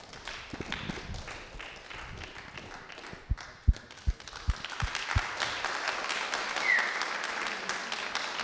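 A small audience clapping and applauding, the applause swelling about five seconds in. A quick run of about five low thumps comes between about three and five seconds in.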